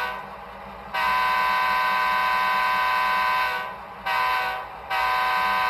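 Diesel locomotive air horn sound effect from the Tsunami 2 sound decoder in an HO-scale Athearn Genesis GP38-2, played through the model's small speaker: a long blast, a short one, then another longer one. Together with the long blast just before, this is the long-long-short-long grade-crossing pattern.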